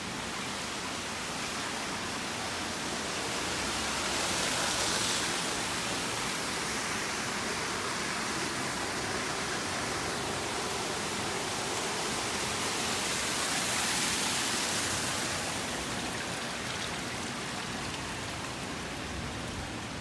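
Steady rush of falling and splashing water, the outflow of a laboratory flume pouring through a V-notch weir. It swells louder twice, about five seconds in and again around fourteen seconds.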